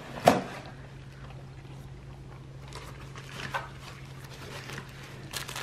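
A corgi chewing a crunchy frosted dog cookie: a sharp snap just after the start, then scattered small crunches and wet mouth sounds, over a steady low hum.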